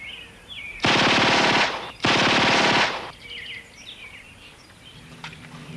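Two bursts of rapid automatic gunfire, each lasting just under a second, about a second apart.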